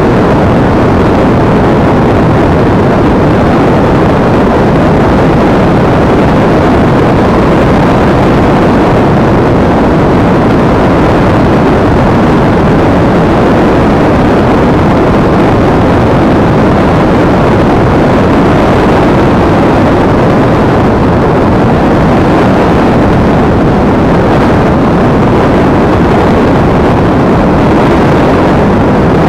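Steady, loud rush of wind and motor noise from a Multiplex EasyStar electric foam model plane in flight, picked up by the action camera riding on board.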